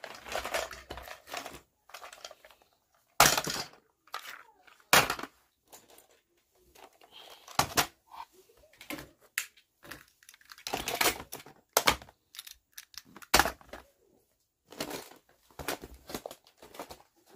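Irregular crinkles, rustles and knocks as clutter is picked up off a carpet: a plastic snack bag crinkling and plastic toys knocking together, in short bursts with pauses between.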